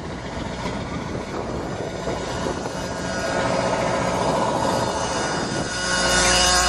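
1996 International school bus's 7.3-litre turbo-diesel V8 idling after a cold start, growing louder partway through. Near the end it turns to a steadier, louder low hum with held tones over it as it is heard from the entrance steps, which likely includes the bus's dash buzzer starting.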